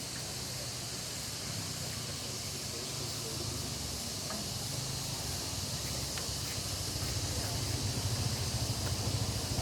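Steady background hiss over a low rumble that grows louder near the end, with a few faint clicks.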